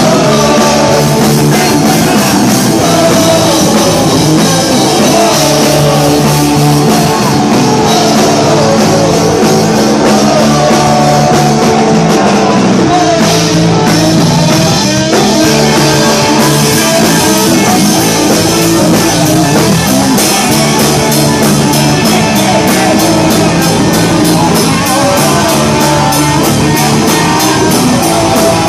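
Live rock band playing: electric guitars, electric bass and a drum kit, with a singer's voice over them.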